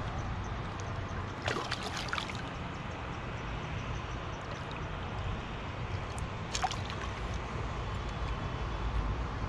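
Water splashing briefly twice, at about a second and a half in and again near the middle, as a freshly caught fish is held in the stream's surface and released by hand, over a steady low background rumble.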